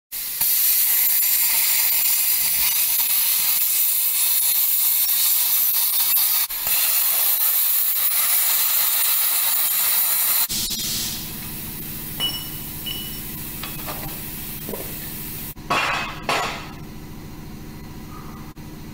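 Electric arc welding: the arc crackles and hisses steadily for about ten seconds, with one brief break partway, then stops. Afterward a steady low hum remains, with a few light metallic clinks and a couple of clanks near the end.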